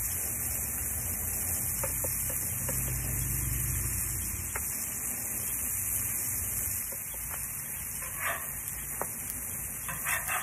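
Batter and pancakes sizzling steadily on a Blackstone griddle's hot steel top, with a metal spatula tapping and scraping on the steel a few times.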